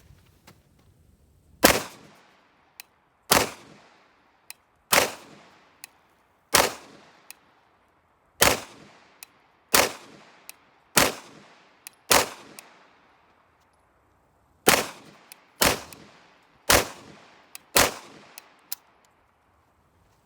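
Cobray M-11/9 9mm pistol fired as twelve single shots, spaced about one to two and a half seconds apart, each shot trailing off in an echo. The twelve shots empty a 12-round Cobray magazine with no stoppage; fainter clicks fall between some shots.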